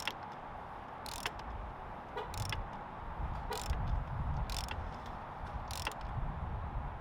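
Ratchet wrench tightening the top cap back onto a RockShox Boxxer fork leg: a short burst of clicking about once a second, six times, as the handle is swung back and forth.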